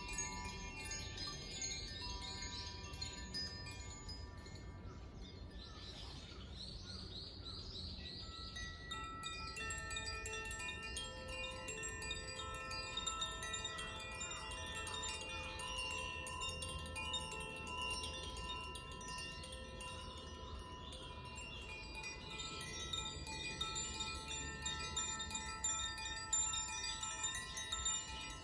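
Koshi and Zaphir chimes, tuned to the fire and air elements, played by hand: a continuous shimmer of many overlapping ringing tones, with fresh strikes adding new notes now and then.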